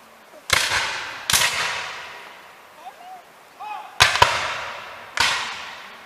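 Black-powder musket shots in a reenactment skirmish: five separate cracks, two of them nearly together about four seconds in, each trailing off in a long rolling echo.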